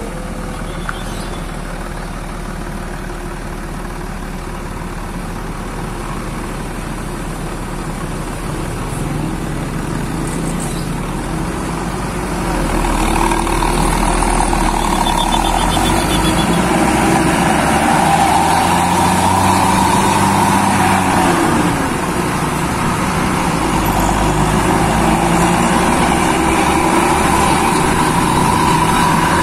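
Diesel engine of a coach whose engine has been tuned for a racing setting, heard from close behind as it pulls away and accelerates. It gets louder about twelve seconds in and stays loud.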